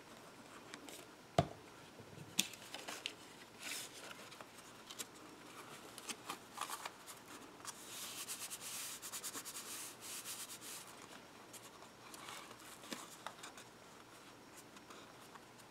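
Paper and cardstock being handled, pressed and rubbed while a panel is glued down, with two light taps about one and two seconds in and a stretch of fine, rapid rasping about halfway through.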